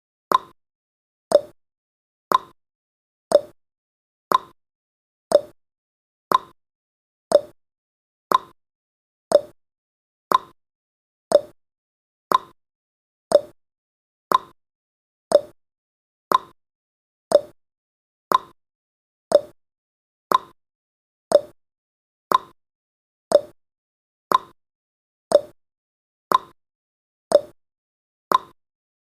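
A countdown timer's tick sound effect: one short, sharp, slightly hollow tick every second, each dying away quickly, counting off the seconds.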